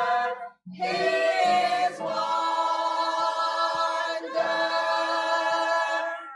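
Choir singing in harmony. It breaks off briefly about half a second in, then comes back and holds long sustained chords, with short breaks between them.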